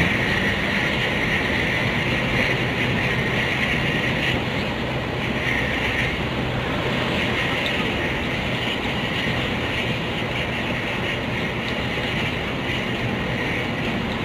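Steady engine and road noise of an intercity bus under way, an even rushing hiss with a low hum beneath it and no change in pitch.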